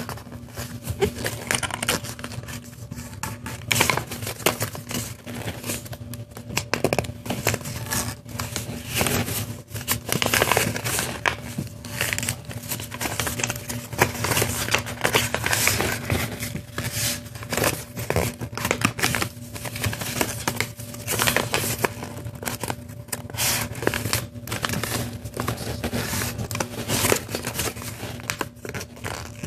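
A strip of paper being folded and creased by hand: continual rustling and crinkling, with many short sharp strokes as the folds are pressed down.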